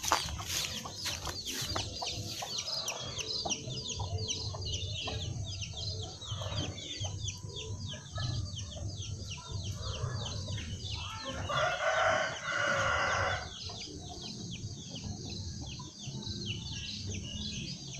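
Chickens calling, with a rooster crowing once for about two seconds a little past the middle. Rapid high chirping goes on throughout.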